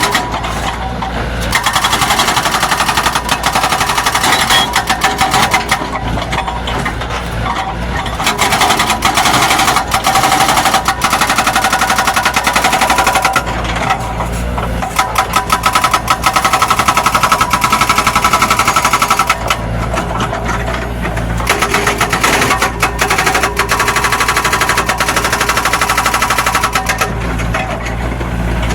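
Zoomlion hydraulic excavator working, its diesel engine running under load beneath a rapid, continuous rattling clatter that swells and eases in stretches of a few seconds.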